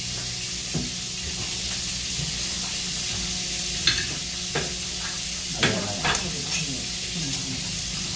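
Glass water glasses being handled and unpacked: a handful of short, light clinks and knocks over a steady background hiss.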